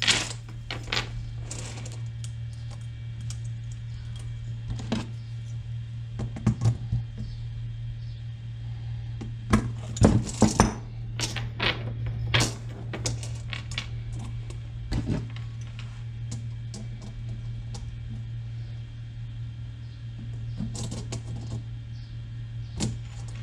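Light metallic clicks and clinks of a small chain and wire hook being handled and bent onto a bird feeder, scattered irregularly with a busier cluster about ten seconds in, over a steady low hum.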